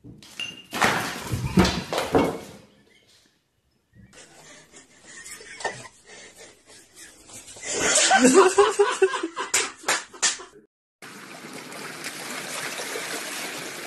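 Three short clips in turn: a sudden clatter with sharp knocks as a startled cat leaps back from a cucumber, then a person laughing, then steady splashing water as a corgi wades into a pool.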